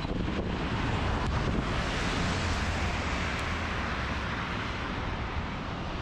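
Blizzard wind buffeting the microphone with a steady low rumble, over the hiss of car tyres on a wet, snowy road; the hiss swells about two seconds in.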